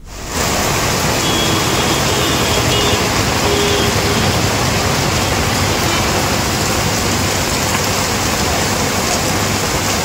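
Heavy rain pouring onto a flooded road while cars drive through the standing water, a steady hiss that comes in suddenly just after the start.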